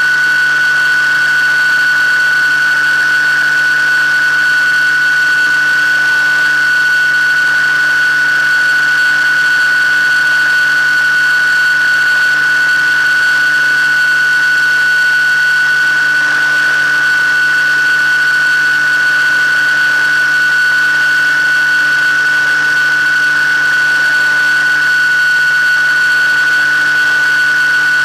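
Electric motor and propeller of an FPV model aircraft, picked up by its onboard camera: a steady high whine that holds one pitch at constant throttle, over an even rushing noise.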